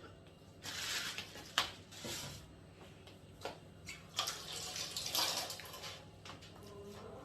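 Water splashing in short, irregular spurts, with a few sharp clicks in between.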